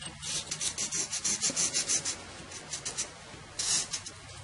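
Felt-tip marker drawn over brown kraft paper along a ruler, in quick scratchy strokes, about five a second, in short bursts with pauses between.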